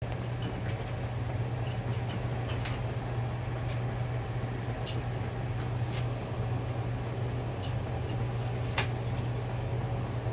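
Steady low machine hum throughout, with scattered faint ticks and splashes from a macaw bathing in a steel water bowl, dipping and flapping its wet wings.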